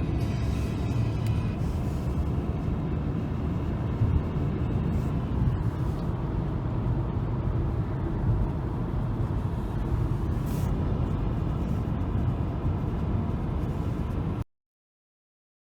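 Steady low rumbling noise that cuts off abruptly near the end.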